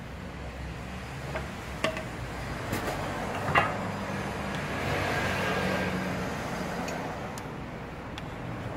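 A motor vehicle going by, its noise swelling to a peak in the middle and fading away, over a steady low hum, with a few sharp clicks in the first half.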